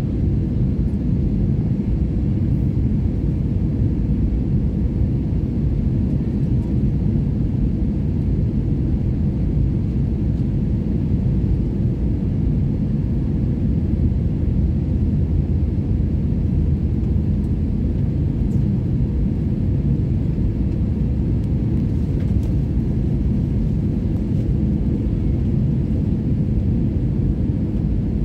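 Steady low rumble of an airliner's engines and airflow heard inside the passenger cabin during the descent. It holds at an even level throughout.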